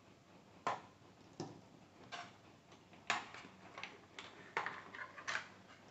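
Light clicks and knocks of hard plastic being handled, about eight in six seconds, as a toy RC tank with plastic tracks is picked up and turned over.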